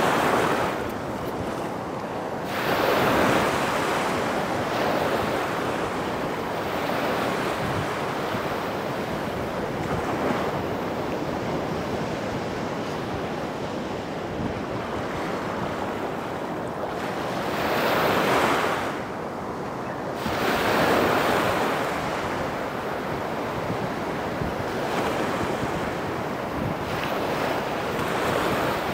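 Small ocean waves breaking and washing up a sandy beach at the water's edge, a steady rush that swells louder several times as sets come in.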